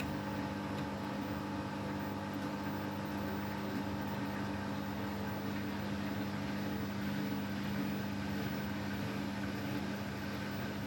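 Beko WTK104121W washing machine running steadily during a spin attempt: a constant motor hum with steady whining tones above it and no change in speed.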